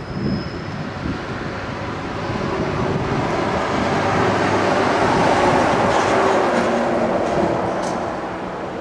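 Electric multiple-unit train running past on the rails, a steady rumble that swells to its loudest about five seconds in and then fades away.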